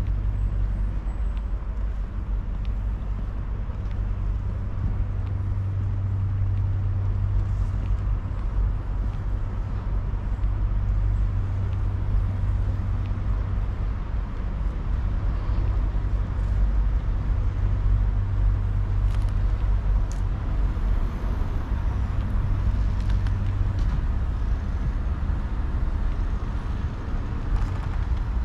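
Steady low rumble of running engines, with a low hum that drops away near the end.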